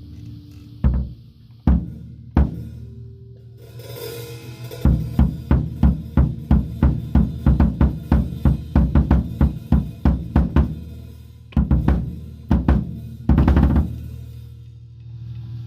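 Yamaha Stage Custom drum kit played for a sound check: three single drum hits, then a cymbal and a run of even strokes at about three a second, then a few more hits and a short roll near the end. The drums ring low between strokes.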